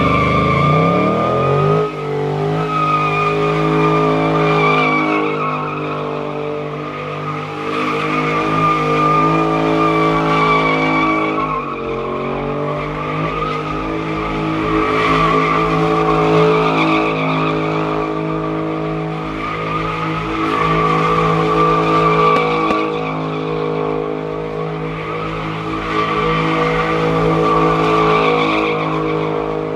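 A car spinning its tyres: the engine revs up and is then held at steady high revs while the tyres squeal continuously, with a brief dip in revs about twelve seconds in.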